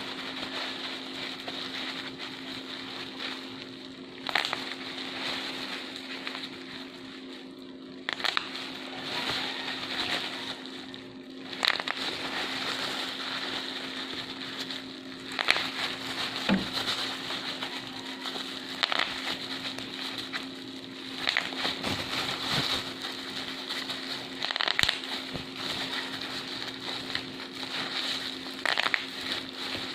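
Bubble wrap being crumpled and popped: continuous crinkling and crackling with a sharper, louder pop every three to four seconds. A steady low hum runs underneath.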